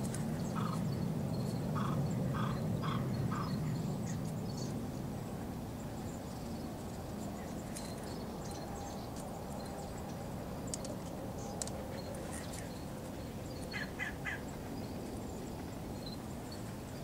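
Outdoor ambience with a steady low rumble, over which birds call: a run of five short calls in the first few seconds and three quick calls near the end, with faint high chirps scattered between.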